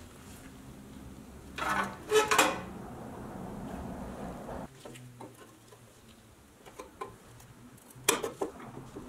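Pressed-steel toy truck body and cab being handled on a wooden workbench: metal clinks and clatters, loudest about two seconds in, with scattered small clicks and a sharp clack near the end.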